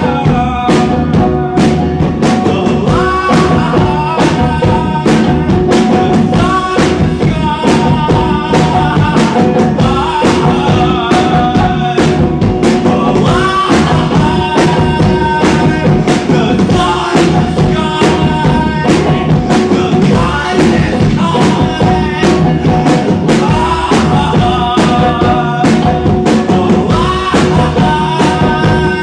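Live band music: a fast rock tune with a steady, even beat.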